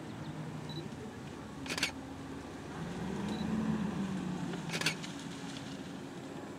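Two camera shutter clicks, about three seconds apart, over a low steady hum, with a low rumble swelling and fading between them.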